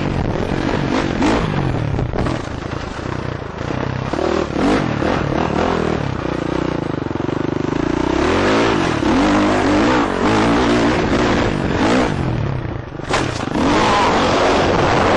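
KTM 450 four-stroke single-cylinder dirt bike engine, revving up and falling off over and over as it is ridden over rough ground, with wind noise over the helmet mic. Near the end there is a brief sharp clatter.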